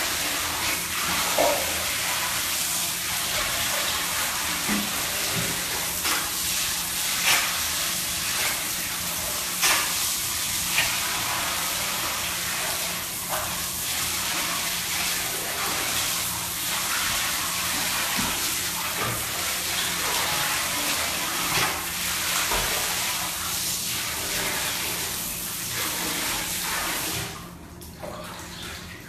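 Tap water running steadily into a bathtub, with repeated small splashes from an otter swimming and paddling in it. The running water stops near the end.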